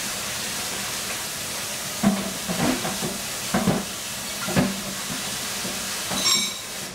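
Steady hiss of a pot of couscous simmering on the stove, broken by a few short knocks and a brief ringing metal clink near the end.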